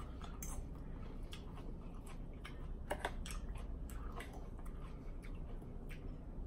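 Close-miked chewing of salad with wet mouth smacks, mixed with a metal fork stirring and tapping in a bowl, giving a run of small irregular clicks; a slightly stronger click comes about three seconds in.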